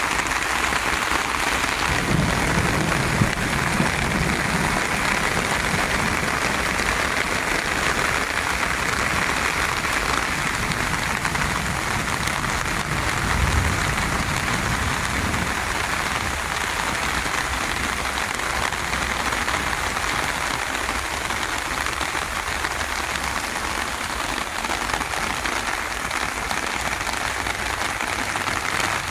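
Steady rain falling on garden plants and beds, an even hiss. There are a few low bumps near the start and again about halfway through.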